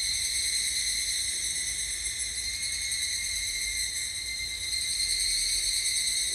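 A steady, shrill high-pitched buzzing drone, insect-like in character, with a faint low rumble underneath.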